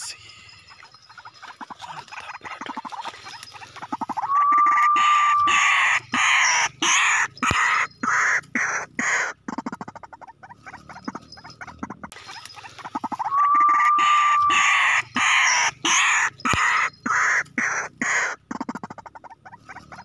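Looped recording of white-breasted waterhen calls, the lure call used to trap the birds: loud, rapid, pulsing chatter with one held clear note, the same passage playing twice.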